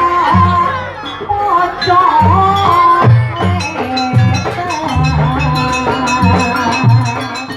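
Jaranan ensemble music: drums beating a repeating pattern under a high, wavering melody line that bends in pitch.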